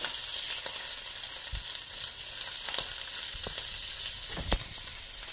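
Whole papio (juvenile trevally) sizzling as it pan-fries in hot oil on medium-high heat, a steady hiss, with a few light knocks of metal tongs against the pan, the loudest about four and a half seconds in.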